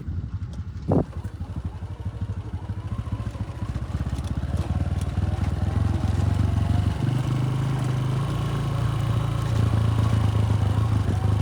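Motorcycle engine running while riding, a steady low drone. About seven seconds in, the engine note steps up in pitch as the revs rise.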